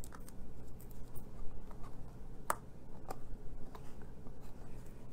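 Small cardstock leaf punch-outs being handled: backing peeled off their adhesive and the leaves pressed onto a paper treat box, making light scattered clicks and paper rustles, two a little clearer about halfway through.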